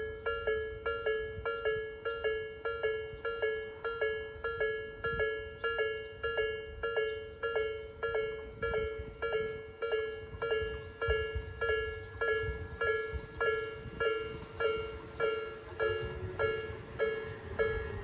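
Japanese railway level-crossing warning bell of the slow Nikko type, with a somewhat distinctive tone, ringing steadily at about three strikes every two seconds. A low rumble builds near the end.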